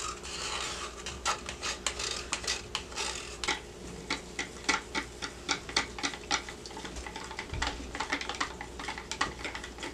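Wooden craft sticks stirring and scraping inside plastic pitchers of cold-process soap batter, mixing in mica colourant: a run of quick, irregular clicks and scrapes.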